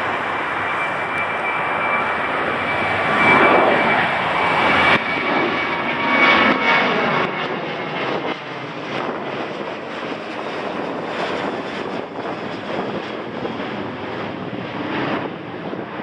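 Boeing 737-700's twin CFM56-7B turbofan engines at take-off power as the jet climbs out overhead: a loud, broad jet noise with a steady high whine in it. It is loudest a few seconds in, then fades as the aircraft climbs away.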